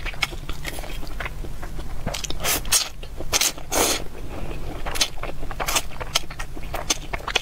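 Close-miked slurping of noodles and wet chewing, a run of irregular short mouth clicks and smacks with a few longer slurps, the longest nearly four seconds in.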